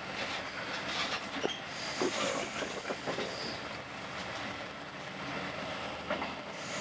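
Passenger train running at speed, heard from inside the carriage: a steady rumble of wheels on the rails with scattered faint clicks.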